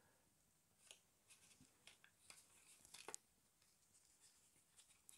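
Faint handling sounds of scale model car parts being fitted together: light rubbing and a few small clicks and taps, the clearest about three seconds in.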